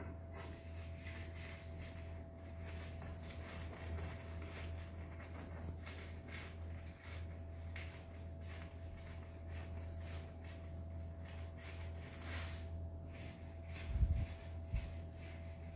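Scissors cutting through folded black paper: faint, repeated snips and paper rustle over a steady low hum, with a louder knock near the end.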